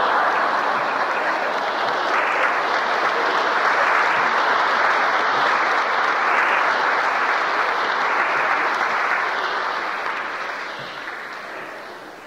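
A church congregation applauding after a joke. The applause holds steady, then dies away over the last couple of seconds.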